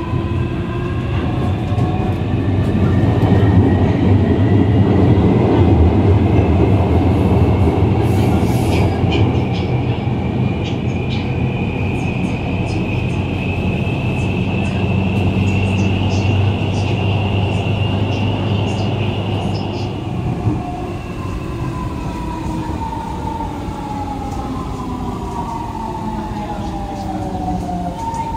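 A Guangzhou Metro Line 1 Adtranz-Siemens A1 train's GTO-VVVF traction inverters and motors, heard from inside the car. A multi-tone whine climbs in pitch over a deep hum as the train gathers speed. About two-thirds of the way through, the traction power cuts and the tones slide down in pitch as the train brakes to a stop.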